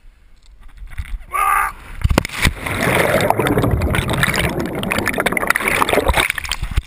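A cliff jump into a river pool: air noise building as the jumper falls, a short cry about a second and a half in, then a splash into the water about two seconds in. This is followed by about four seconds of dense underwater bubbling and churning as the submerged microphone goes under with the jumper, which cuts off sharply near the end.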